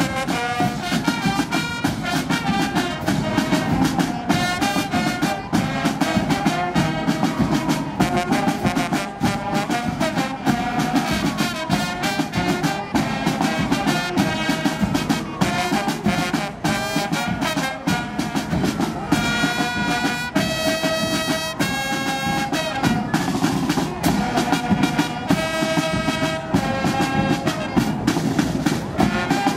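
Brass band music with a steady beat, trumpets and trombones playing, with long held notes about two-thirds of the way through.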